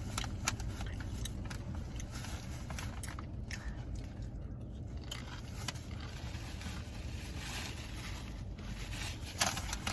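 Crunching and chewing of crisp tortilla chips, scattered small crackles and clicks, over the steady low hum of a car running with the AC on low. One sharper crunch comes near the end.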